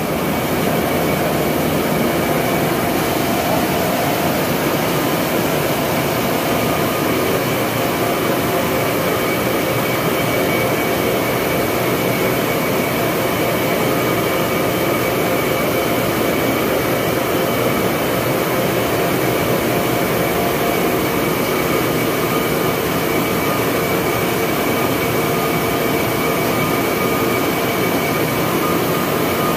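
Corn mill running while grinding corn into grits: a loud, steady machine noise with a constant hum.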